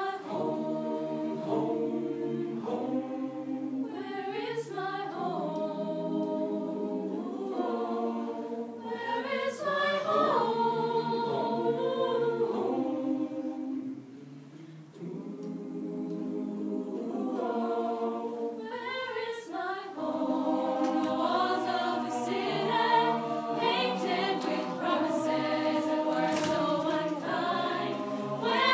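Mixed-voice youth choir singing a cappella in close harmony, holding sustained chords. It drops briefly quieter about halfway through, then comes back fuller and louder for the last third.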